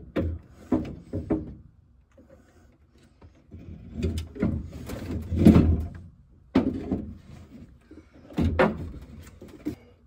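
Chevy S10 dashboard being worked into place by hand: irregular knocks, bumps and scraping as the dash shifts against the cab, with a lull about two seconds in and sharper knocks later on.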